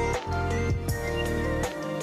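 Background music with a steady beat, a sustained bass line and a melody over it.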